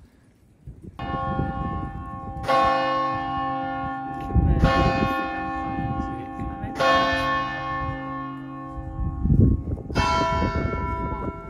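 Church tower bells in a stone campanile struck five times, about two seconds apart, each strike ringing on and overlapping the next.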